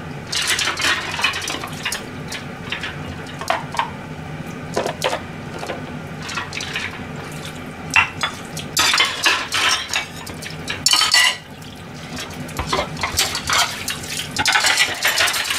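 Washing up at a stainless-steel kitchen sink: ceramic bowls, plates and a metal pot clink and clatter against each other and the sink, with repeated sharp knocks. The tap runs in stretches of a second or two, twice in the latter half.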